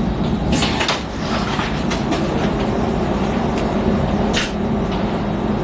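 X10 electric commuter train heard from inside the carriage: a steady low rumble, with a few short hisses about half a second in and one more about four and a half seconds in.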